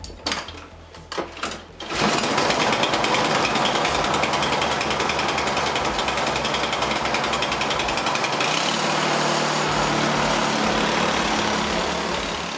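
Toro 518 ZE single-stage snowblower: a few clicks, then about two seconds in its small engine starts and runs loud and steady. Around eight seconds in, its note shifts and a lower, steady hum joins in.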